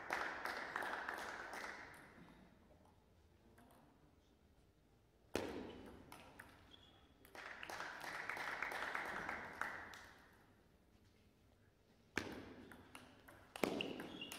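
Table tennis ball clicking sharply off bats and table in a large sports hall, with a single loud click about five seconds in. A rally of quick clicks starts about two seconds before the end. Between them are two stretches of a diffuse hall noise.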